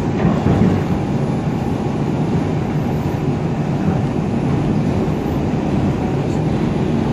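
Steady rumble and drone of an R142 subway car running between stations, heard from inside the car.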